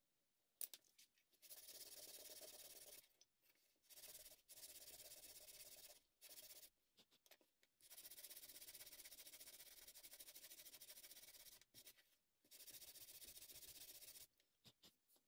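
Thin wooden straight-razor scale being sanded by hand, faint rasping in four runs of quick back-and-forth strokes with short pauses between.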